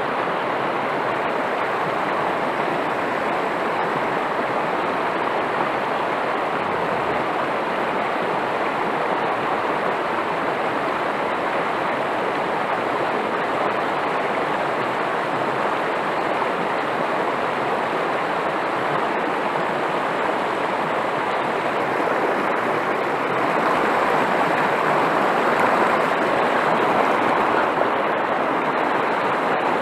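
River water rushing through a shallow rocky run of rapids, a steady rush of white water that grows a little louder about three quarters of the way through.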